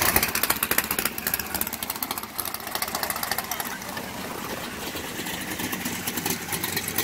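Drag-race cars' engines idling with a rapid, uneven pulsing as the cars roll slowly past, loudest in the first couple of seconds.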